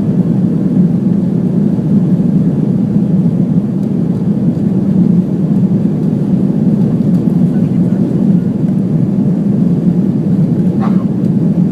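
Steady low roar of jet engines and airflow heard inside the cabin of an Airbus A330-300 airliner during take-off.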